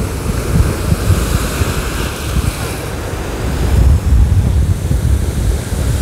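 Sea of Azov surf breaking and washing up the shore in a continuous rushing wash. Wind buffets the microphone with a gusty low rumble that grows stronger in the second half.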